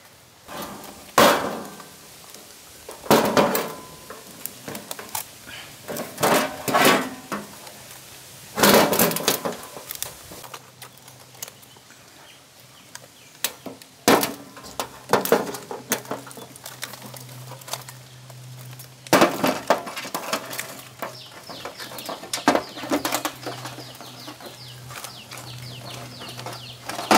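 Live mud crabs being handled: their hard shells and claws clack and scrape against one another and knock down onto a metal tray, in scattered sharp knocks and clicks, some ringing briefly.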